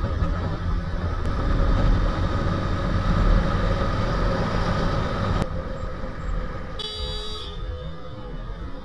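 Motorcycle riding in traffic: steady engine and wind noise from the rider's camera. About seven seconds in the sound turns quieter, with a brief high-pitched tone.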